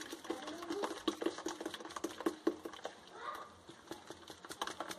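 A plastic sieve clicking and scraping against the rim of an aluminium pot in quick, irregular taps while blended pineapple-peel juice is strained through it.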